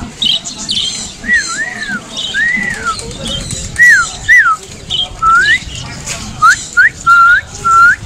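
About ten clear whistled notes, beginning about a second in, some arching up and down and later ones sliding upward, over a steady patter of high bird chirps.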